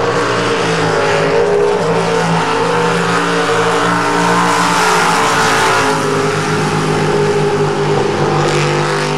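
Jet sprint boat engine running hard at race speed through the turns of the course, its pitch stepping up and down as the throttle changes, over a steady hiss of water spray.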